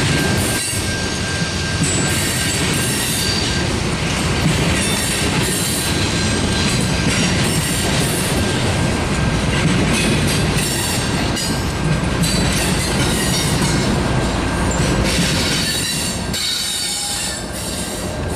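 Coal train's cars rolling past with wheel squeal and rail noise, then the rear distributed-power GE diesel locomotive passing about halfway through. The sound falls away near the end as the last of the train clears.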